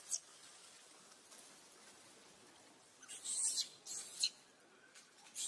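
Infant macaque giving short, high-pitched squeaks: one right at the start, two close together about three seconds in, and another at the end.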